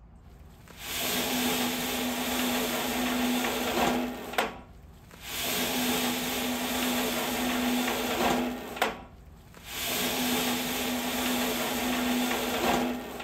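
Christmas tree netting machine running as a tree is drawn through its funnel and wrapped in cotton net: a motor with a steady hum, in three runs of about three and a half seconds with short pauses between, the first two ending in a sharp click.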